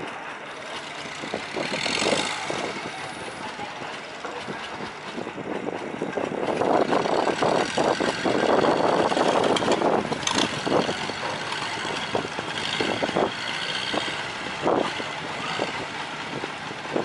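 Long-tail boat's inboard engine running under way, its propeller churning the water behind the boat; the sound grows louder for a few seconds in the middle.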